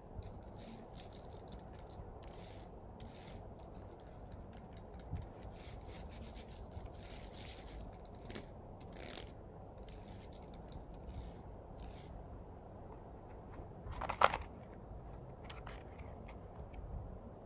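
A hand rubbing and wiping across an iPad's glass screen in many quick, hissy strokes, with one short, louder sound about fourteen seconds in.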